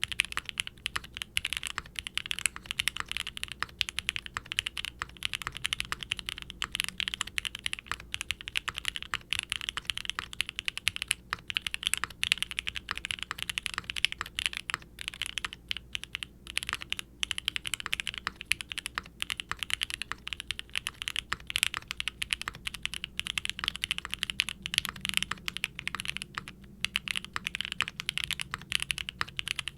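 Continuous fast typing on a Qwertykeys QK60 R3 mechanical keyboard with Gateron Oil King linear switches, re-lubed with Krytox 205g0, under GMK double-shot ABS keycaps: a dense run of key clacks with a few brief pauses.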